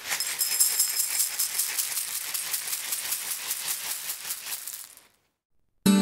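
Dense, shaker-like rattle of many small hard pieces, high-pitched and busy for about five seconds, fading and stopping. After a short silence, acoustic guitar music starts right at the end.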